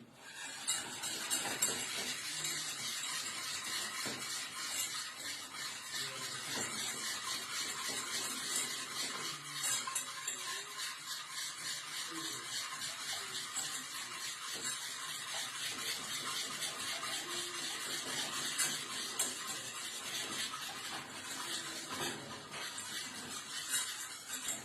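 Rapid, continuous stirring with a kitchen utensil against a pot or bowl: a steady scraping and ticking, likely mixing the chocolate into the heated milk mixture for basbousa.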